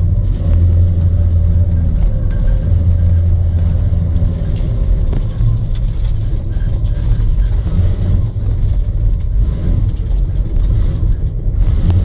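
Toyota Land Cruiser 70 driving, heard from inside the cab: a steady low engine drone with road noise, shifting slightly a few times.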